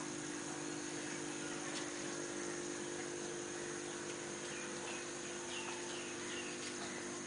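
Chery QQ 308's 800 cc three-cylinder DOHC engine idling steadily, with a steady high-pitched tone running over it.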